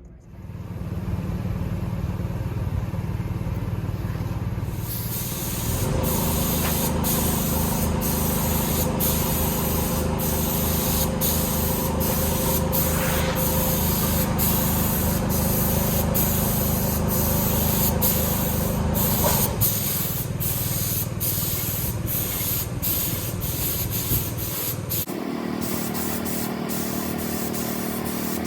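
An air compressor running with a steady hum, and from about five seconds in a paint spray gun hissing loudly, cut by many brief breaks, as black paint is sprayed.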